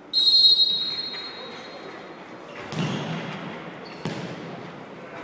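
Referee's pea whistle blowing one sharp blast that echoes in the sports hall for a second or two, followed by a futsal ball being struck with a thud about two and a half seconds in and another knock about four seconds in.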